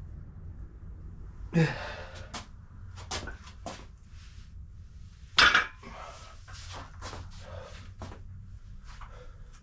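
A person breathing hard with short, sharp exhales while straining through a weighted leg set. Two louder sounds stand out, about a second and a half in and again about five and a half seconds in. A steady low rumble runs underneath.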